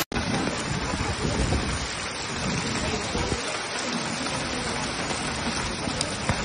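Heavy rain pouring down in a steady hiss, with an uneven low rumble underneath.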